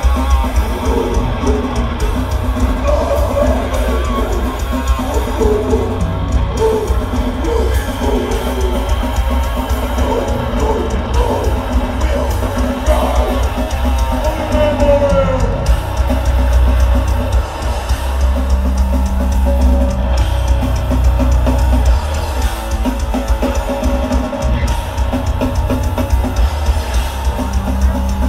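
Death metal band playing live: distorted electric guitars and electric bass over a full drum kit in a dense, heavy wall of sound.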